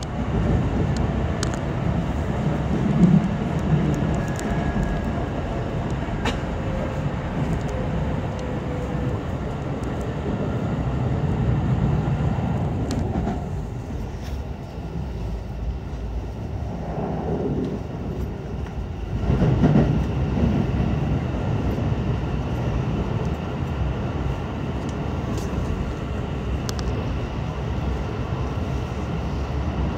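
Keikyu limited express train running at speed, heard from inside the car: a steady low rumble with scattered sharp clicks, swelling briefly about two-thirds of the way in.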